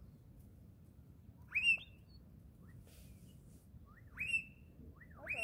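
Spurfowl calling: a short rising whistled note about a second and a half in, another about four seconds in, and a third near the end joined by several softer overlapping notes from more than one bird.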